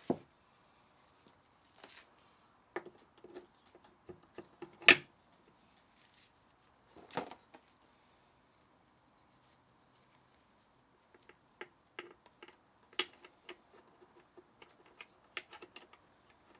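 Scattered clicks and knocks of parts being handled while reassembling a Suzuki Swift 5-speed gearbox, with louder knocks about 5 and 7 seconds in, a quiet spell, then a run of light ticks and another knock near the 13-second mark.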